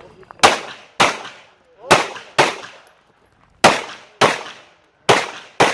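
Pistol fired in four quick pairs, eight shots in all, the two shots of each pair about half a second apart, each shot trailing off in a short echo.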